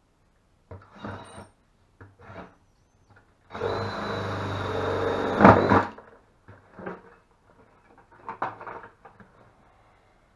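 Cordless drill cutting into the side of a plastic 5-gallon bucket. A few short bursts come first, then one steady run of about two seconds with a motor whine about halfway through, then more short bursts.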